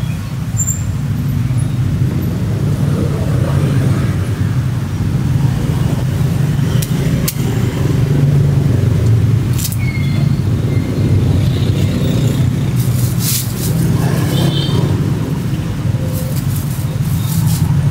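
Steady rumble of street traffic, motorbikes and cars running past. Crackly rustling of a plastic bag and crisp rice crackers being handled comes and goes over it, most around two-thirds of the way in and near the end.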